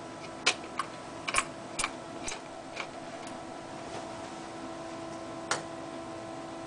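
Sharp clicks and taps of small hard parts being handled, several in quick succession over the first few seconds and one more later, over a steady electrical hum.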